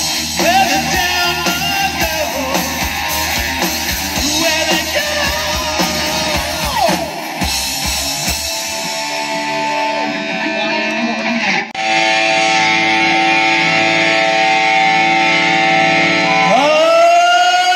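Live 1980s-style hard rock band playing: electric guitars and drums with sung lead vocals. About halfway through the drums and low end drop out, leaving sustained held notes, with rising slides near the end.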